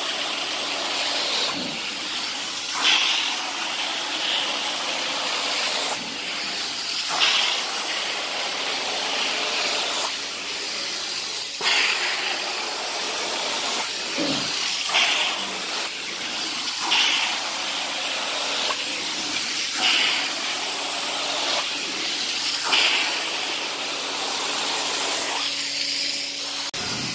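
Carpet-cleaning extraction wand drawn across wet carpet, its suction and spray giving a steady hiss. The hiss surges louder every two to four seconds as the wand is worked in strokes, over a faint machine hum.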